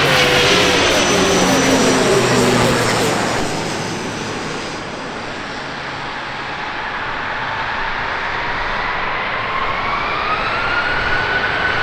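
CASA C-295M's twin Pratt & Whitney PW127G turboprops passing low overhead on landing approach: the propeller drone drops in pitch as the aircraft goes over, fades a little, then builds again with a whine climbing in pitch near the end.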